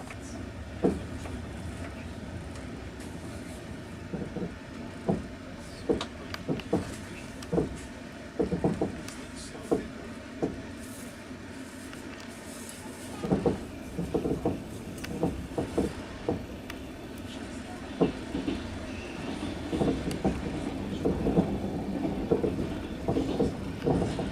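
Passenger train running, heard from inside the carriage: a steady rumble with the wheels clacking over rail joints, the knocks coming in quick groups every few seconds and growing busier near the end.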